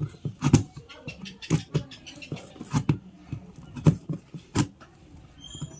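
Packaging being handled and unpacked: irregular rustling and scraping with several sharp knocks and taps.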